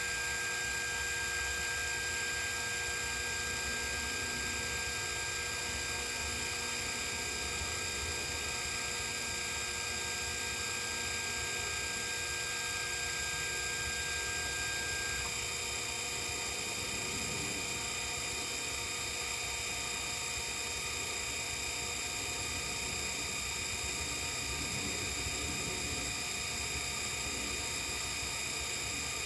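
Sherline CNC mill running under program control: a steady whir and whine from its spindle and stepper motors, made of several steady tones. About halfway through, one high tone stops and a different, higher one starts as the motion changes.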